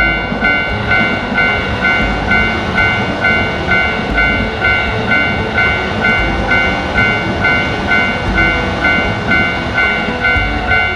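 Japanese railroad crossing bell ringing its even, repeating "kan-kan" about twice a second, over the low rumble of a passing train.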